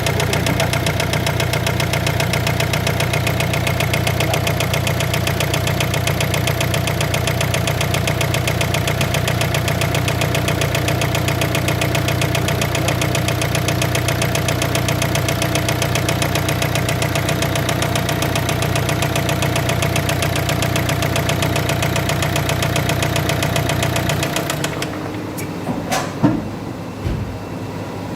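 Warm car engine idling with a fast, even knock, which the owner puts down to connecting rod bearings damaged after coolant got into the cylinder through a failed head gasket. The engine stops about 24 seconds in, followed by a sharp knock a couple of seconds later.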